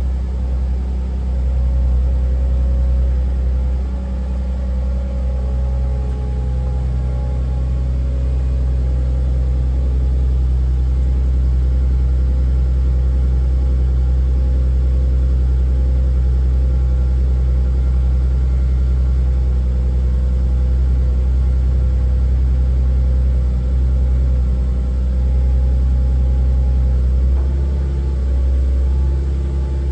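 Linde counterbalance forklift's engine running steadily at a low, even speed, a deep hum, shifting slightly near the end.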